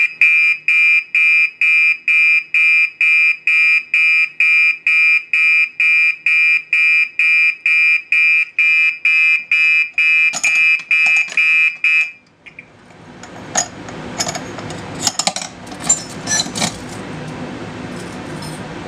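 First-generation Gentex SHG fire alarm horn sounding in march-time code, a loud high-pitched beep about twice a second. It stops about twelve seconds in, followed by clicking and rattling as the pull station is reset with its key.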